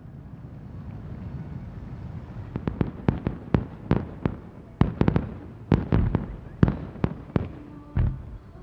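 Aerial fireworks bursting. A low rumble gives way, about two and a half seconds in, to about twenty sharp bangs in quick succession, each with a short echo.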